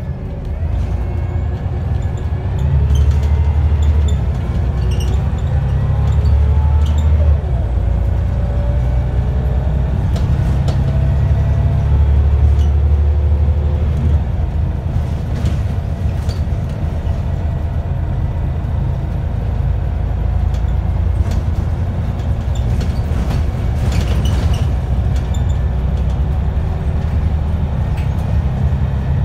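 Scania single-deck bus heard from inside the saloon while under way: a steady low diesel rumble, with a whine that rises slowly twice in the first half as the bus picks up speed, over scattered rattles and clicks from the body.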